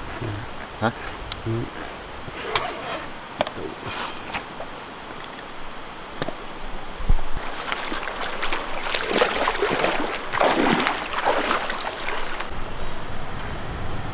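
Night insects, crickets among them, chirring steadily in thin high tones with a faster pulsing buzz above. Close by, gear is handled: scattered clicks and knocks, a louder knock about seven seconds in, and rustling from about eight to twelve seconds in.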